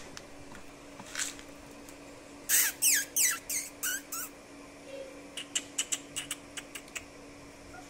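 Great Dane puppies squealing, a quick run of five or six high calls that drop in pitch, about halfway through. This is followed by a quicker series of light clicks over a faint steady hum.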